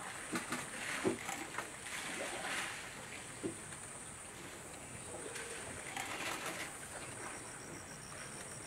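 Outdoor riverside ambience: birds calling over a steady high drone, with soft splashes and knocks as elephants wade and drink in shallow water. A pulsing high trill joins about seven seconds in.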